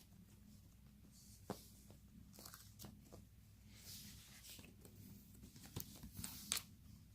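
Near silence: room tone with faint rustling and a few light clicks, one about a second and a half in and two more near the end.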